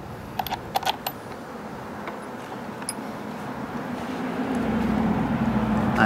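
A few small metallic clicks in the first second as the mirror screw and parts are handled, then a passing motor vehicle's engine hum and road noise growing steadily louder over the last few seconds.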